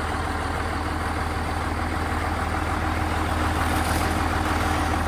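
Farm tractor engine idling with a steady low hum, slowly growing a little louder.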